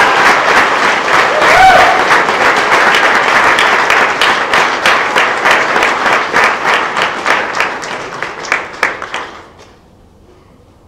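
Guests applauding after the first kiss, a dense round of clapping that thins to scattered claps and dies away about nine to ten seconds in.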